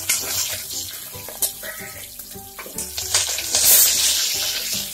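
Freshly added small onions sizzling in hot oil with mustard seeds in a pressure cooker. The sizzle flares louder for about a second near the end.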